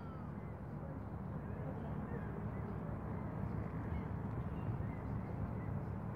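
Steady low outdoor rumble at the water's edge, with a few faint short bird calls about four to five and a half seconds in.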